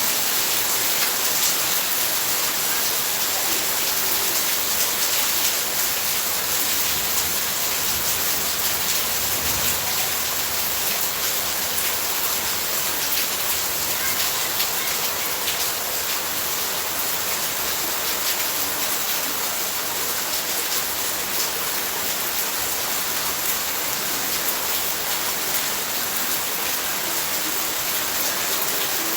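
Heavy rain falling steadily, a dense hiss of drops beating on surfaces.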